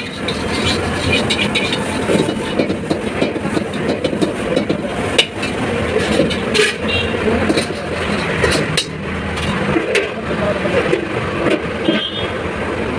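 Steady loud rush of a high-flame gas wok burner, with occasional sharp metallic clanks of a spatula against the steel wok.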